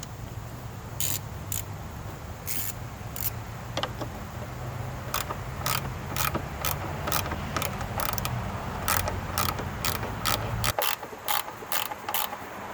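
Ratchet wrench clicking in short runs as 10 mm fasteners are turned, the clicks sparse at first and then coming faster. A steady low hum runs underneath and stops suddenly near the end.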